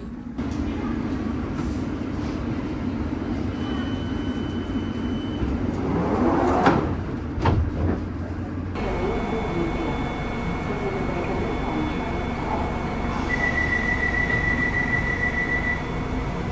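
Rail car rumbling steadily with a few knocks, then a steady electrical whine. Near the end a rapid electronic beeping sounds for about two and a half seconds, a train's door-closing warning.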